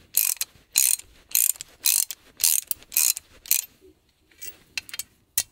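Ratchet wrench worked in quick, even strokes, about two a second, each a short rasping click-run, as a nut is run up a threaded rod joining the timbers; the strokes stop about two-thirds of the way in, with a few lighter ones and one more near the end.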